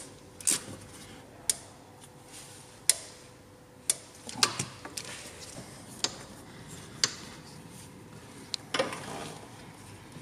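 Irregular sharp clicks and clinks of tools and metal parts being handled in a car's engine bay, about ten over the stretch. A faint steady hum runs underneath.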